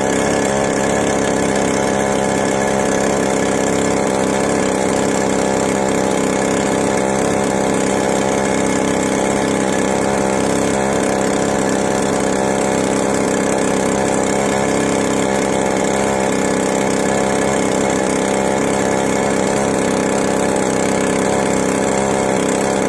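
Small fibreglass skiff's engine running steadily at constant speed as the boat cruises.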